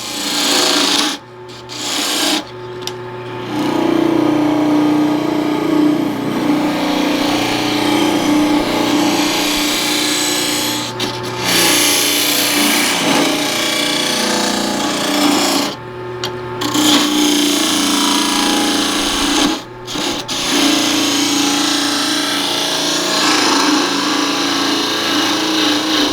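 Lathe turning tool cutting a spinning cedar bowl blank: a continuous rough scraping over a steady hum, breaking off briefly about five times.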